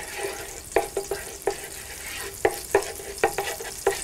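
Butter and oil sizzling in a skillet, with a steady hiss as the water in the melting butter boils off. A wooden spoon stirs through it, knocking against the pan about eight times at an uneven pace.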